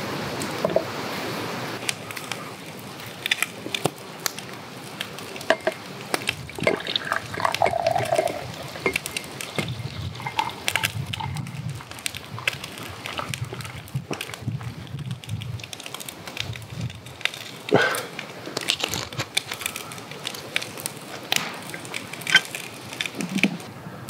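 A drink poured from a metal container into a pint glass, with liquid sloshing and splashing. Sharp clicks and knocks sound on and off throughout.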